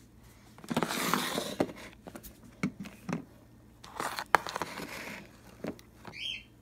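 Plastic containers and bottles being handled and set down on a stone countertop: a few light knocks and clicks among stretches of rustling and shuffling.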